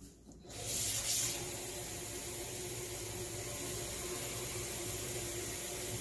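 Kitchen sink faucet running steadily, filling a glass measuring cup with water. The flow starts about half a second in and stops near the end.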